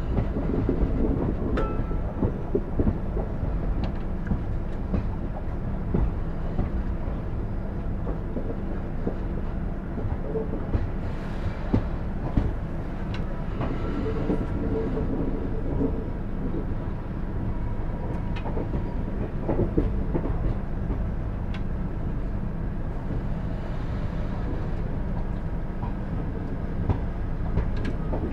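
Passenger train running along the track, heard from on board: a steady rumble of wheels on rails with scattered clicks and knocks from the rail joints.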